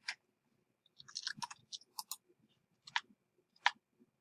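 Faint clicking from a computer keyboard and mouse: a quick run of clicks about a second in, then single clicks every half second or so.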